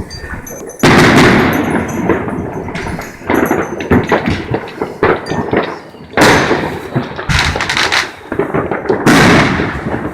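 Fireworks going off: three loud bangs about 1, 6 and 9 seconds in, each ringing out and trailing off, with smaller crackles and pops between them.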